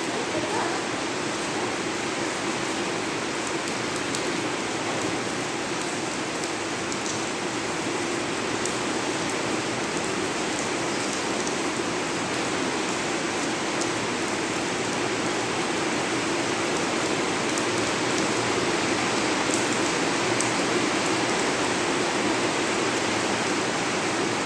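Heavy rain falling steadily, a dense hiss of rain pouring down, getting slightly louder in the second half.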